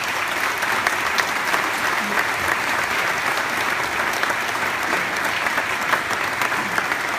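Audience applauding, a dense, steady clapping that holds evenly throughout.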